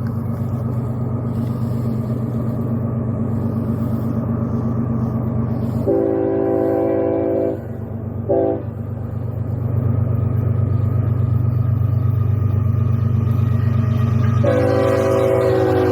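CSX freight train passing at speed with a steady low rumble, its locomotive air horn blowing a long blast about six seconds in, a short blast soon after, and another long blast starting near the end.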